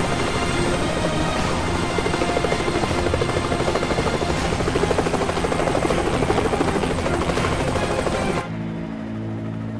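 Black Hawk-type helicopter lifting off and flying, its rotor blades chopping rapidly, with music underneath. Near the end it cuts suddenly to a quieter, muffled, steady low drone, as heard inside the cabin.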